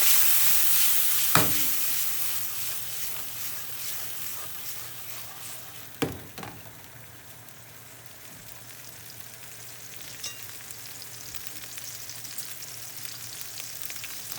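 Shrimp and garlic sizzling in hot oil in a frying pan, loudest at the start and dying down over several seconds. Two sharp knocks sound, about a second and a half in and about six seconds in.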